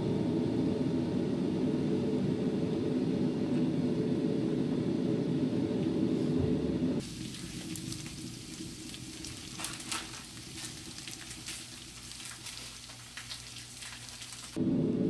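Food sizzling in a frying pan, a steady hiss with scattered sharp clicks of a utensil against the pan, from about halfway in until just before the end. Before that, a steady low sound fills the first seven seconds and cuts off suddenly.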